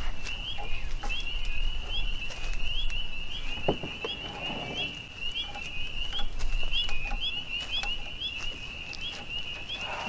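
Frogs calling in a steady chorus, high short rising peeps about twice a second. About four seconds in comes a click and a short squirt from a trigger grease gun greasing the sawmill's band wheel bearing.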